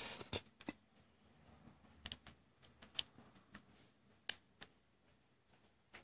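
Irregular small, sharp clicks and taps as a Micro-USB-to-30-pin adapter is worked back into a tablet's dock connector.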